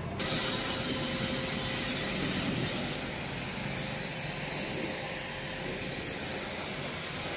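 Water spray jet hissing and splashing steadily onto the plastic front grill of a split air conditioner's indoor unit as it is washed, with a faint steady whine beneath; the spray gets slightly louder just after the start and eases a little about three seconds in.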